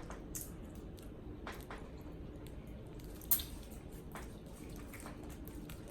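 Faint wet eating sounds of a shrimp boil in sauce: chewing and smacking, with scattered small clicks and one sharper click about three seconds in.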